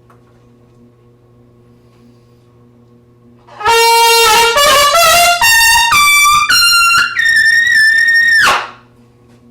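Trumpet played solo: after a few seconds of quiet, an ascending run of about seven notes climbing to a high note held for over a second, then cut off.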